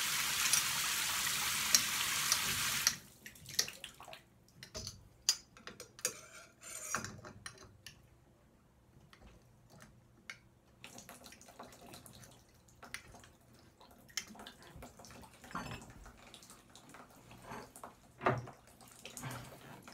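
Water running hard from a tub/shower faucet, a steady hiss that is shut off suddenly about three seconds in, followed by scattered drips and small clicks and knocks from the faucet handles.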